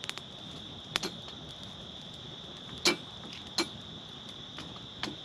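Wood campfire crackling: a handful of sharp pops, the loudest about halfway through, over a steady high-pitched hiss.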